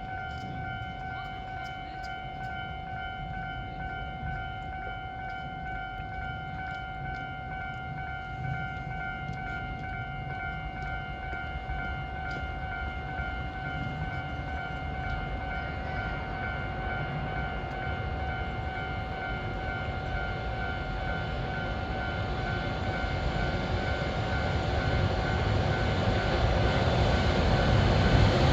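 Railway level crossing warning bell ringing steadily, a repeating electronic ding, while the low rumble of an approaching train grows louder in the last several seconds.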